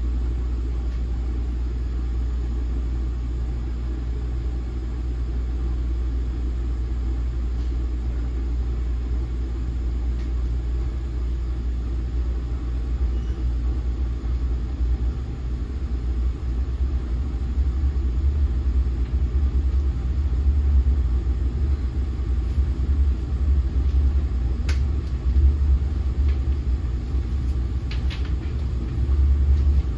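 Low rumble heard inside an NJ Transit Multilevel passenger coach as the train pulls out of a station and gets under way, growing louder and rougher from about halfway through, with a few faint clicks near the end.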